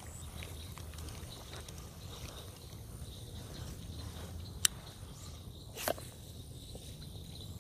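Faint steady outdoor background with a low hum, broken by two sharp clicks about a second apart in the second half from a baitcasting reel being handled for a cast.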